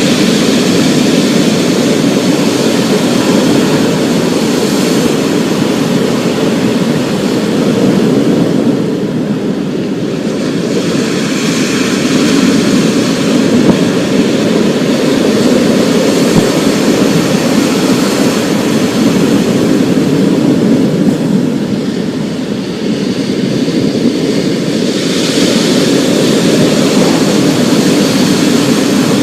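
Thunderstorm ambience: a steady deep rumbling roar under a rain-like hiss. The hiss fades a little twice and swells back.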